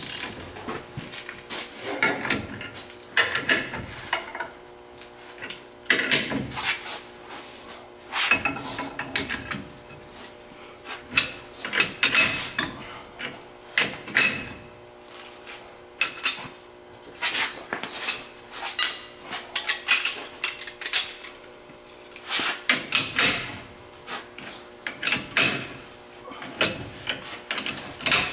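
Steel tools and ball joint press parts clanking and knocking against each other, with irregular strikes every second or two, some with a bright ringing tail, during installation of a new lower ball joint.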